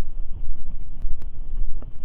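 Wind buffeting the microphone: a heavy, uneven low rumble, with a few faint clicks over it.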